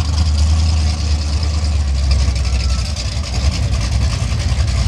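Two drag-race cars, a 1966 Ford Fairlane and a Chevrolet El Camino, idling at the starting line. Their engines give a loud, deep, steady rumble.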